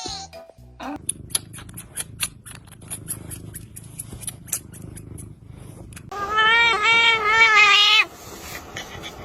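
A cat gives one loud, wavering yowl lasting about two seconds, coming after several seconds of quick clicking at about three to four clicks a second.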